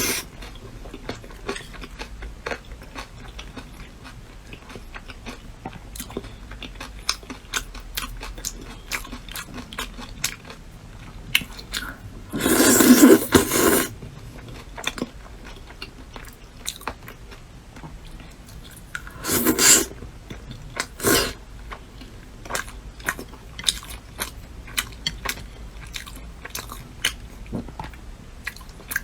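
Close-miked chewing and biting of food, with many small wet clicks throughout. Louder, longer bursts come about halfway through, and twice more a few seconds later.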